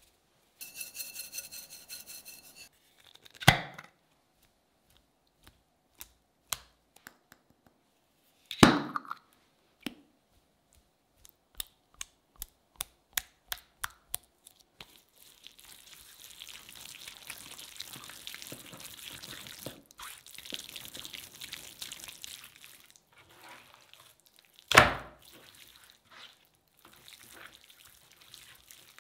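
Hand seasoning and marinating of a large raw beef steak on a plastic cutting board: three loud knocks spread through, a quick run of light taps, then a long stretch of wet rubbing as hands work paste and sauce into the meat.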